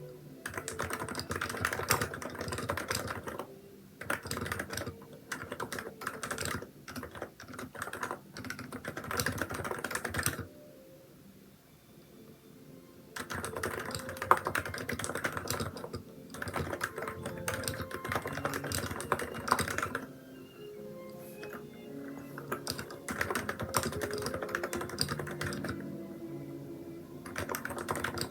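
Typing on a Hansung electrostatic-capacitive keyboard with XDA keycaps: fast runs of key presses in bursts. There is a pause of a couple of seconds before the middle of the stretch and a lighter patch later, over soft background music.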